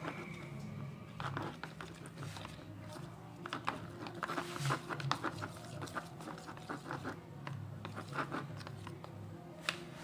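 Homemade slime being worked by hand, making irregular sticky clicks and crackles.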